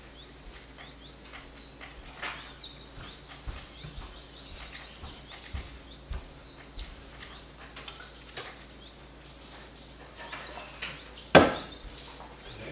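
Small birds chirping in the background, many short high chirps scattered throughout. A single sharp knock near the end is the loudest sound.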